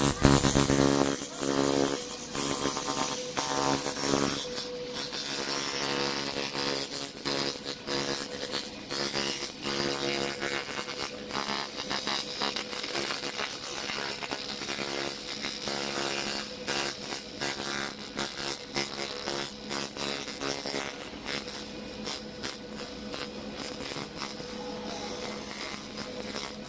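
Handheld pulsed laser cleaning head buzzing and crackling as its beam sweeps over a rusty steel linear guide rail, stripping the rust, over a steady hum. Louder for the first few seconds.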